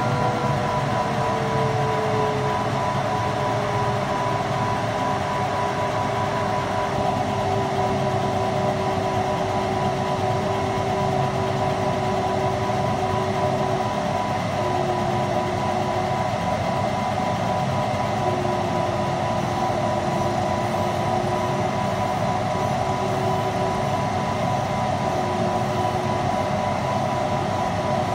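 CO2 laser engraver running an engraving job on two-tone plastic: a loud, steady mechanical whirring with a hum that slides lower in pitch over the first few seconds and then holds, while the head makes repeated passes.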